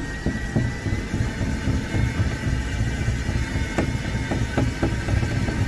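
Ryobi cordless drill driving a drywall screw through a hinge into wood without a pilot hole: the motor whines with a slight rise in pitch, and irregular clicks come as the screw goes in hard.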